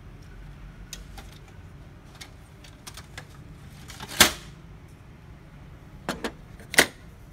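Scattered clicks and knocks from parts of an opened HP LaserJet M203dn laser printer being handled. A few light ticks are followed by a sharp clack about four seconds in and three more close together near the end, the last the loudest.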